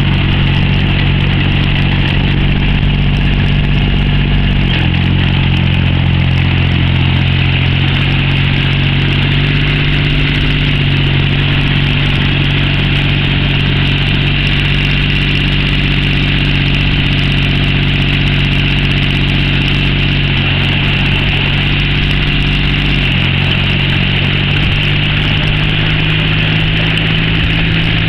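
Compact farm tractor's diesel engine running steadily under load as its rear rotary tiller puddles a flooded rice paddy. The engine note drops a little about five seconds in and picks up again about five seconds before the end.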